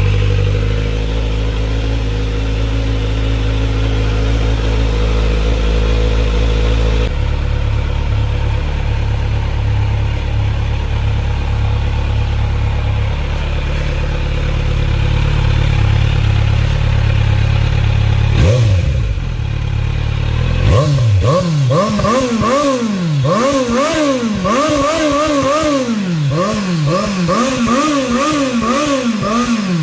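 Kawasaki Z900's inline-four engine idling steadily, then revved once about two-thirds of the way in and, shortly after, blipped repeatedly, the pitch rising and falling roughly once a second.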